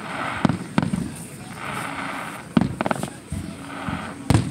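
Aerial fireworks shells bursting: a series of sharp bangs in quick succession, the loudest near the end.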